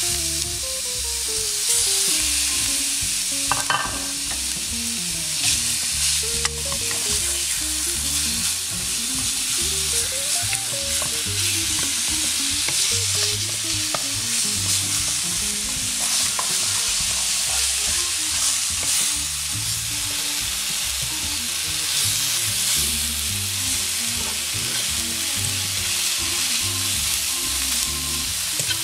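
Chicken escalopes sizzling in oil in a frying pan with browned onions, a steady frying hiss throughout. Occasional light scrapes and taps come from a wooden spoon and a fork moving the meat in the pan.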